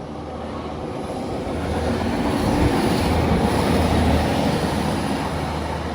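Class 195 diesel multiple unit passing, its underfloor diesel engines and wheels on the rails growing louder to a peak about three to four seconds in, then fading.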